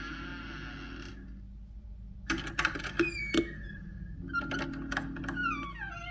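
Animated-film sound effects: a short whooshing sound with wavering pitch, then a burst of sharp clicks and knocks about two seconds in, and more clicks with squeaky falling glides near the end.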